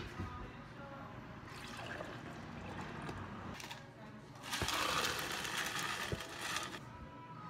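A large plastic cup set down on a counter with a knock, then poured into: a softer pouring sound first, and a louder, fuller pour about four and a half seconds in that lasts about two seconds.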